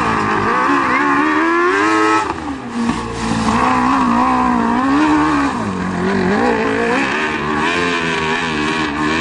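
Engine of a racing Piaggio Ape three-wheeler on a dirt track, revving up and down through the corners, its pitch rising and falling again and again, with a brief drop and quick climb about two seconds in.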